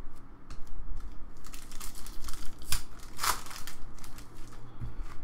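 Foil wrapper of a 2016 Upper Deck Marvel Masterpieces trading-card pack crinkling as it is handled and pulled open by hand. The crackling comes in a flurry about one and a half to four seconds in, loudest in the middle.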